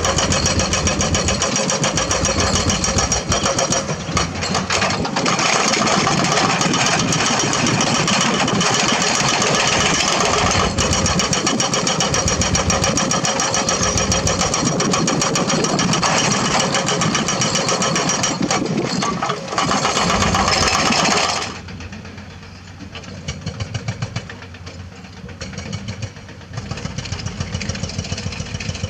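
Crawler excavator's diesel engine running loud and close while its bucket works stony dirt, with many short knocks and scrapes. About two-thirds of the way through, the sound drops suddenly to a quieter, more distant excavator engine.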